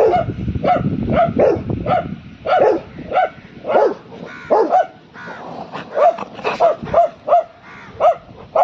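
Dog barking in a rapid string of short barks, about two or three a second, with a brief lull a little past the middle.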